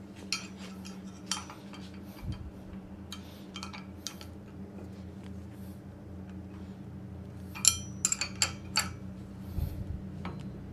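Metal parts of a belt grinder's work rest clinking and knocking as they are handled and adjusted by hand, with a quick cluster of sharp metallic clinks about eight seconds in. A steady low hum runs underneath.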